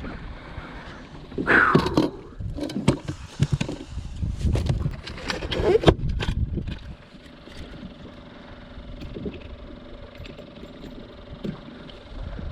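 Knocks and clattering of a big largemouth bass being handled and landed in a boat, with a short exclamation; after that, a faint steady hum.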